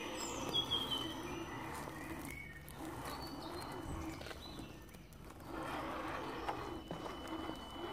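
Woodland birds calling and singing, with a quick falling whistle in the first second. A low steady whirr runs underneath, fitting the electric motor and gears of an Axial SCX10 RC crawler driving by.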